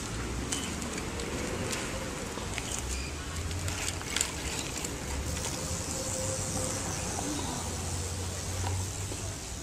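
Outdoor background noise: a high, steady insect buzz that grows stronger in the second half, over a low rumble, with scattered small ticks and clicks.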